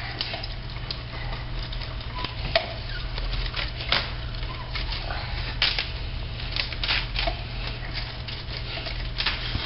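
Romaine lettuce leaves being torn by hand: scattered crisp snaps and crackles, with a few small taps, over a low steady hum.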